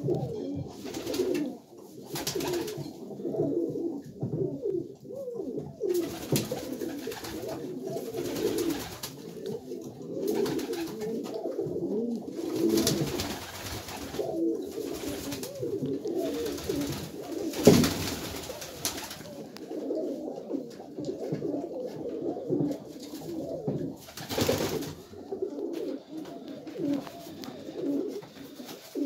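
Many domestic pigeons, Satinette fancy pigeons among them, cooing continuously in overlapping voices. Short bursts of wing flapping come several times as birds take off and land, the loudest a sharp clap a little past the middle.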